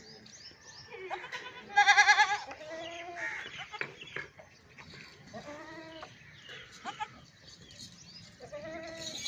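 Goats bleating, several separate calls. The loudest is a high, wavering bleat about two seconds in, with lower bleats following at intervals and one near the end.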